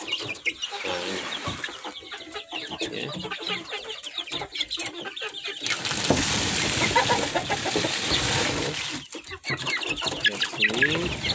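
Chickens clucking, many short calls overlapping. From about six seconds in to about nine, a steady rustling hiss rises over them.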